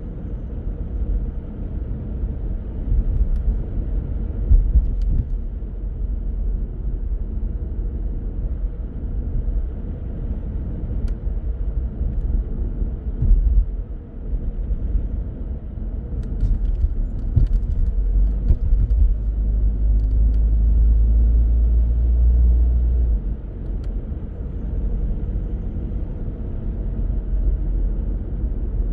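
A car driving through city streets: a steady, deep rumble of engine and tyre noise. A little past the middle, a louder, even low drone holds for a few seconds, then cuts off suddenly.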